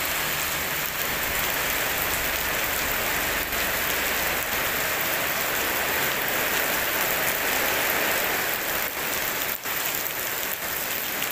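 Heavy, steady rain pelting paved ground and puddles: a dense, even hiss of drops with no thunder.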